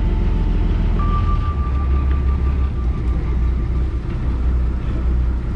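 Steady low rumble of a fishing boat's engine, with a steady high tone over it from about a second in until about four seconds.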